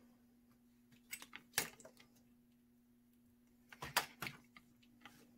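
Faint clicks and light metallic taps in two short clusters, about a second in and again about four seconds in, as solder and a Weller soldering iron are handled at the iron's metal stand; the second cluster comes as the iron is lifted out of the stand.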